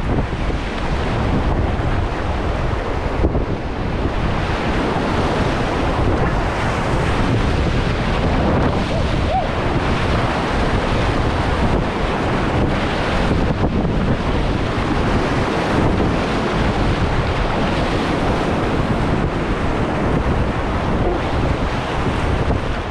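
Class III whitewater rapid rushing loudly and steadily around a small inflatable raft, with waves splashing against and over the boat. Wind buffets the microphone.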